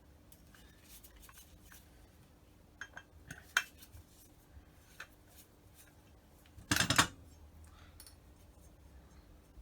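Small metal parts and tools clinking against a Holley two-barrel carburettor as its main jets are handled and checked. There are a few light clicks about three seconds in and a louder clatter about seven seconds in.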